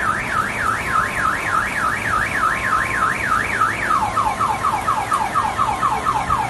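Car alarm sounding: a tone sweeping up and down about three times a second, switching a little over halfway through to faster falling chirps, about four a second, over a steady hiss of rain.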